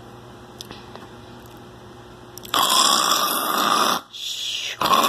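A person snoring loudly, starting about halfway in: a long snore, a shorter softer one, then another loud one.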